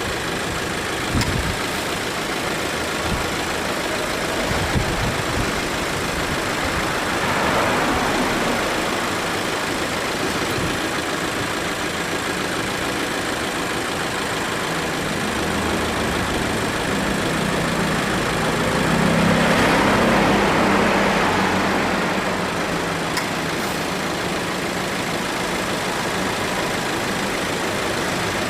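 2018 Subaru Forester idling with its air-conditioning compressor cycling on twice, about seven seconds in and again about nineteen seconds in. Each start brings a swell of noise lasting a couple of seconds, the second with a low hum. This noise on compressor start is the sign of light compressor wear, which goes with weakening cooling.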